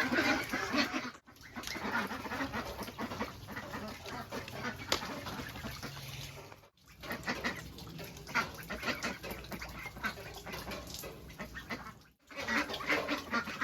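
Waterfowl calling with many overlapping quacks, breaking off abruptly three times.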